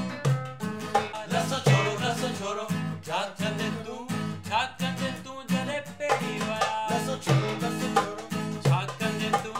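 Band music: guitar over a moving bass line and a steady percussion beat.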